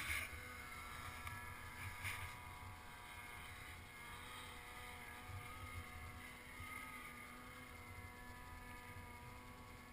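Snowmobile engine running steadily and faintly at a constant pitch, idling with no revving.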